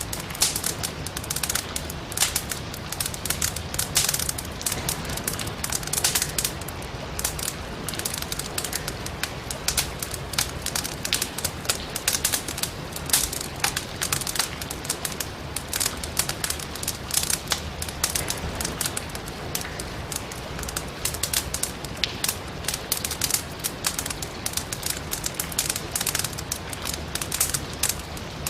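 Firewood burning in a fireplace, crackling and popping with dense, irregular sharp snaps, over a steady hiss of rain.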